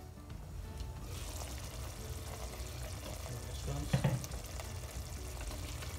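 Thick lamb and pumpkin curry bubbling and sizzling steadily in an open pot, with a single knock about four seconds in.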